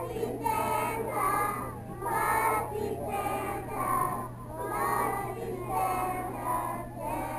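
A group of young children singing a song together in short phrases, with adult voices among them.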